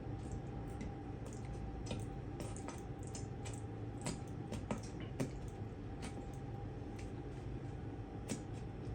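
Soft squishes and scattered small clicks of a burger being assembled by hand, with Thousand Island dressing going on, over a steady low hum.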